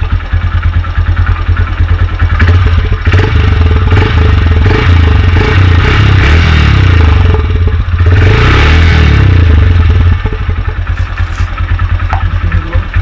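Motorcycle engine and exhaust running and being revved several times, the pitch rising and falling, then settling back to idle about ten seconds in.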